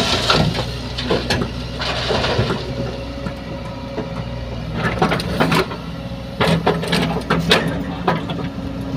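Diesel engine of an excavator running steadily while stone is loaded into a tipper truck, with several bursts of rocks scraping and clattering.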